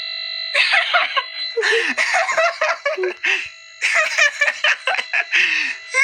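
A steady electronic alarm-like tone, alone for about half a second, then overlaid by rapid, high-pitched cartoonish voices.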